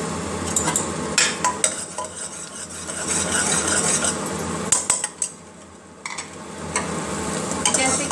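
Metal lid of a pressure cooker handled and lifted off, with sharp metal clanks about five seconds in. Onion, garlic and tomato masala paste sizzles in oil in the pot, and a steel spoon clinks against it near the end.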